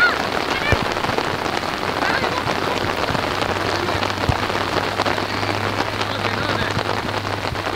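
Steady rain pattering on a surface close to the microphone, a dense run of small drop ticks over an even hiss.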